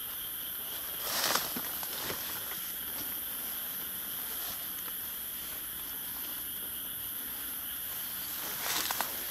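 Night insects calling in a steady, continuous high-pitched drone, with footsteps rustling through grass and dry leaves about a second in and again near the end.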